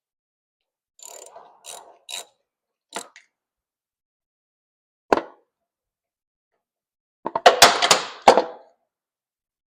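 Hand tools and engine parts being handled: a few light clicks and rattles, one sharp knock about five seconds in, then a louder burst of clattering knocks near the end.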